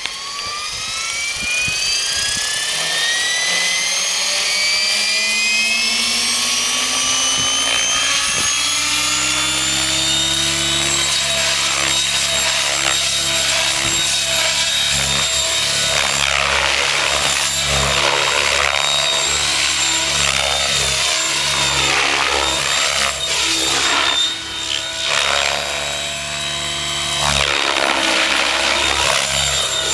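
Mikado Logo 600 electric RC helicopter on a Pyro motor spooling up: the motor and rotor whine rises steadily in pitch for about ten seconds, then holds steady at head speed as it lifts off. From about sixteen seconds in, the blade noise swells and wavers again and again as it flies 3D manoeuvres.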